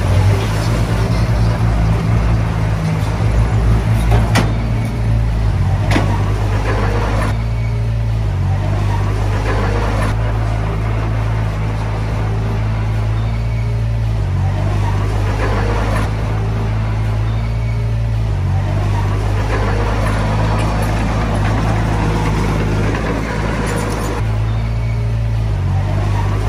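Diesel engine of a Komatsu D20P small bulldozer running steadily, its engine speed shifting up and down several times. Two sharp metallic clanks come in the first six seconds.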